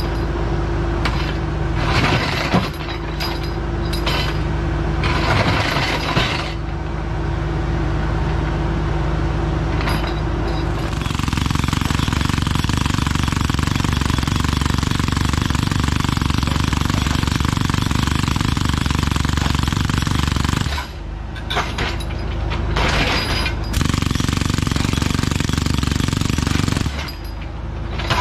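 Bobcat E26 mini excavator with a hydraulic breaker hammering on rock over the running engine. The pounding becomes dense and continuous from about eleven seconds in and stops briefly twice near the end.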